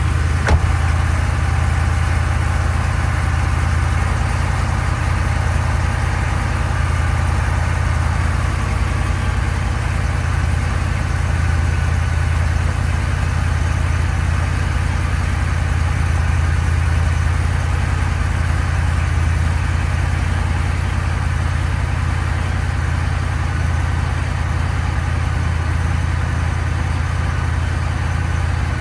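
Steady low drone of a vehicle with a Ford 10R100 ten-speed automatic transmission running, with faint steady higher tones over it. A single short click comes about half a second in.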